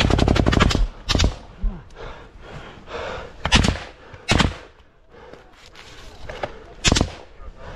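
Close automatic rifle gunfire in a trench firefight. A rapid burst ends within the first second, then single loud shots follow every second or two, with fainter shots between them.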